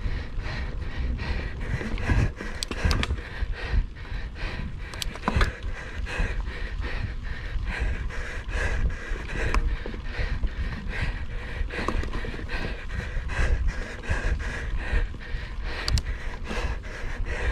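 A mountain biker breathing hard while riding at race effort, over the steady low rumble of wind and tyres and the irregular knocks and rattle of the bike on rough trail.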